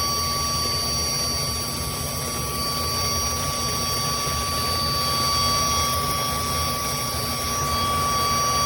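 Cordless handheld vacuum cleaner running steadily: a constant motor whine with a high tone over a low rumble and airflow hiss.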